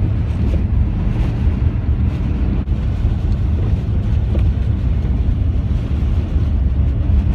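Cargo van driving on a snowy road, heard from inside the cab: a steady low rumble of engine and road noise with some wind.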